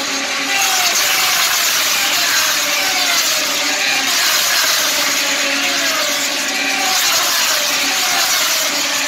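Moto2 racing motorcycles with Triumph 765 cc three-cylinder engines running at high revs as they pass in a pack. The engine note falls in pitch again and again, more than once a second, as bike after bike goes by.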